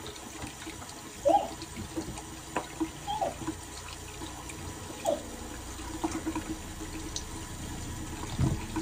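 Bathroom sink tap running, water splashing into the basin, with three brief higher-pitched sounds about two seconds apart over it.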